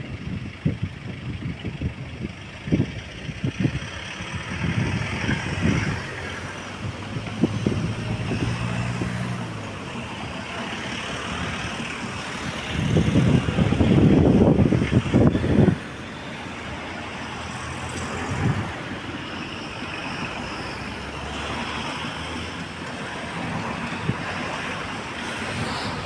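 A train running, its engine droning with a low steady hum, while wind buffets the microphone; the rumble swells loudly for a few seconds about halfway through.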